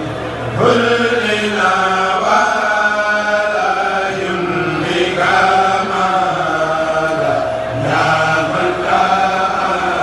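A group of men chanting Mouride khassida (devotional religious poems) in unison through microphones, with long held notes that slide up and down in pitch.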